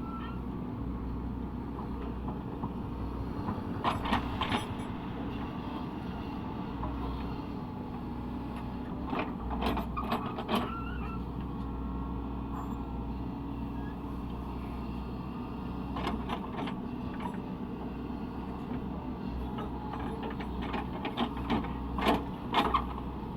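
Caterpillar 307E2 mini excavator's diesel engine running steadily, with short metallic clanks and knocks every few seconds as it works.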